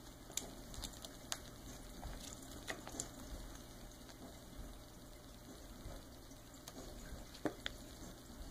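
Faint scattered taps and clicks from a silver Bengal kitten playing with a toy on a carpet, with the sharpest click about seven and a half seconds in.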